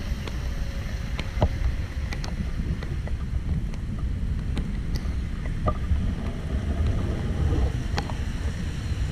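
Wind rumbling on the camera microphone, with scattered light ticks throughout.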